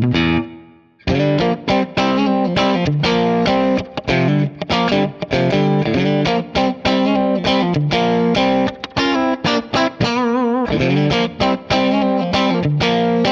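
Yamaha Pacifica Professional electric guitar with Reflectone pickups, played with a clean tone. A chord rings out and fades in the first second. Then the playing starts again on the middle and bridge pickups together, with picked chords and single notes, and a held note shakes with vibrato near the end.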